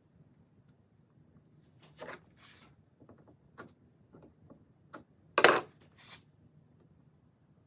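Scattered brief scrapes and knocks from handling the work and a hose or cord at a workbench. The loudest is one short, sharp noise about five and a half seconds in.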